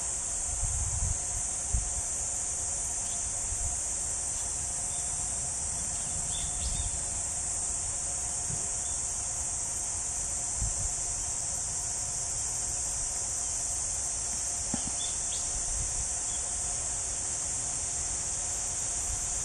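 Steady, high-pitched shrilling of an insect chorus that never lets up, with a few brief low thuds about a second in and again around the middle.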